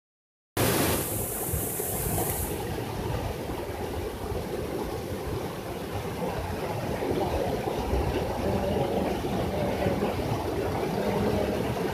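Waterfall pouring into a rock pool, heard up close: a steady, full rush of crashing water that starts about half a second in.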